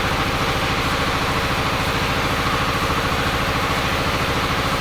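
Small diesel engine of a walk-behind horizontal-shaft flail mower running steadily under load, with a rapid, even beat, as its flail blades chop and shred grass.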